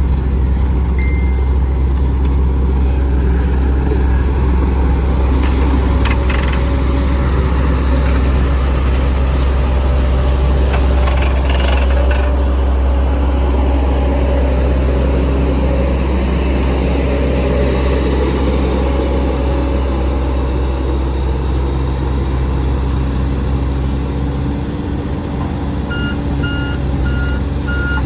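Heavy diesel engine of construction machinery running steadily, with a couple of brief metallic clicks in the first half. Near the end a reversing alarm starts beeping in a regular on-off pattern.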